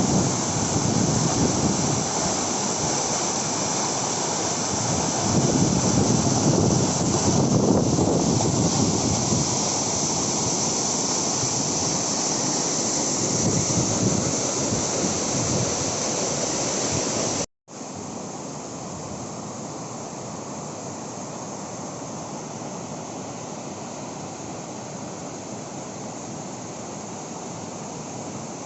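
Waterfall's water rushing in a steady roar, a little way past halfway breaking off in a brief cut and going on noticeably quieter.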